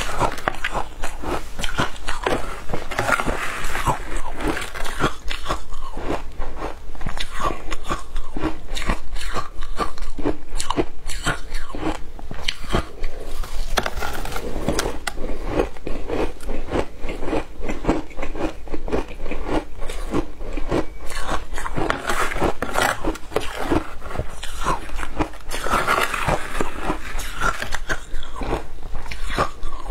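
Close-miked crunching and chewing of shaved ice dusted with matcha powder, a dense, continuous run of crisp crunches as the ice is bitten and chewed.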